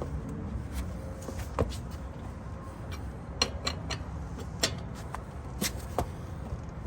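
Lug wrench being fitted onto and turned on a car wheel's lug nuts to tighten them: scattered light clicks and clinks over a steady low rumble.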